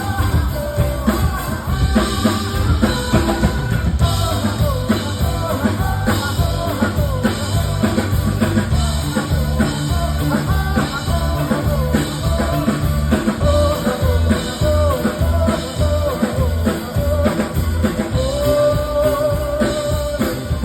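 Rock-style band music with a steady drum-kit beat under a singer's voice, a long note held near the end.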